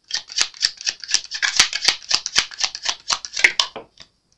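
Tarot deck shuffled by hand: a quick, dense run of card-on-card clicks and rustles lasting about four seconds, ending with one last tap.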